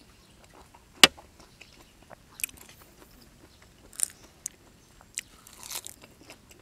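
Close-up eating sounds: chewing a mouthful of raw beef and fresh leaves, with scattered crisp bites and crunches. The loudest is a sharp crunch about a second in.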